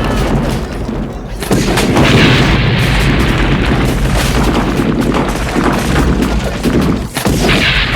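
Heavy, continuous booms and gunshot-like impacts layered over music, dense and loud with a deep rumble underneath.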